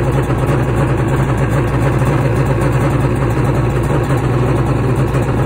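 Yamaha XL1200 jet ski's three-cylinder two-stroke engine idling steadily, run out of the water for a test start.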